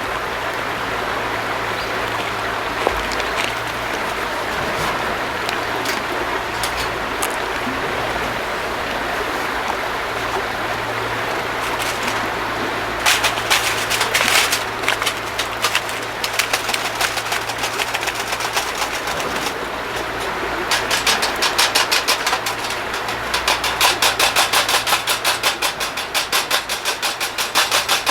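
Steady rushing water noise with a low hum under it. About halfway through, scattered clicks begin, turning into fast, rhythmic clicking strokes in the last third.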